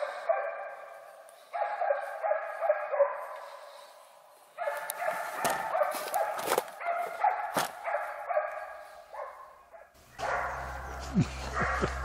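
A pack of hunting dogs barking and baying at a wild boar in long runs of calls that break off and start again several times. A few sharp knocks come in the middle.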